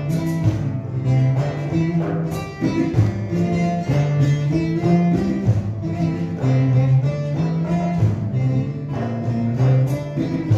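Instrumental passage of a live Turkish folk-song arrangement: an acoustic guitar and other string instruments play together without singing. Held low notes step through the melody about every half second.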